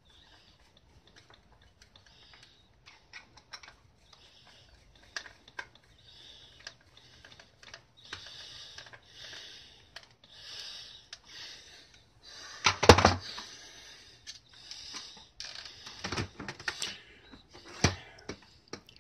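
Screwdriver turning small screws into the plastic back case of a Harbor Freight Cen-Tech digital multimeter: a run of small scratchy clicks and rasps. A few louder knocks come from the meter being handled on the bench, the loudest about two-thirds of the way through.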